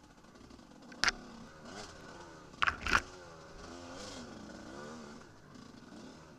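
Enduro motorcycle engine revving up and down as the bike is ridden along a rough trail, with sharp knocks about a second in and twice around three seconds in.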